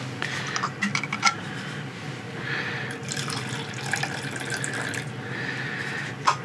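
Liquid poured from a thermos into a cup, a steady rushing pour in the middle, preceded by a few sharp clicks of the thermos being handled.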